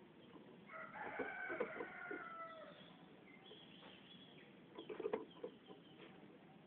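Bird calls: one drawn-out call of about two seconds with several pitches sounding together, dipping slightly at its end, then faint high thin notes. A cluster of light clicks and taps comes about five seconds in.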